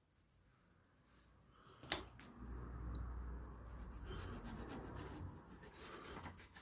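A rag rubbing Autosol metal polish into rusty bicycle metalwork, a faint steady scrubbing. A single click comes about two seconds in, and the rubbing follows.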